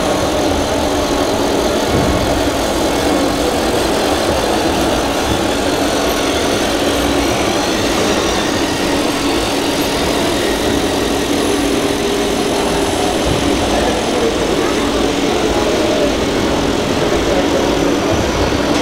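Steady engine-like hum of a 1:14 scale RC model truck, with voices chattering in the background.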